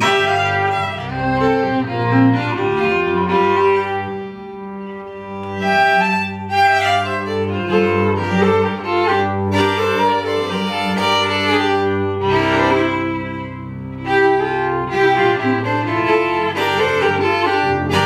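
Two fiddles playing an old-time fiddle tune together over upright bass, live and unamplified-sounding in a small room. The music eases off briefly about four seconds in and again about twelve seconds in before picking back up.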